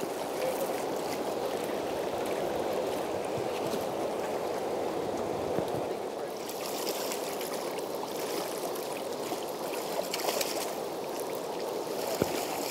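Fast river water rushing around a small open boat: a steady hiss of current, with a few faint knocks.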